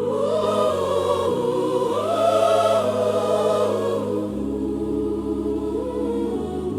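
Gospel music with a choir singing long wordless vowels over held bass chords that shift every second or two.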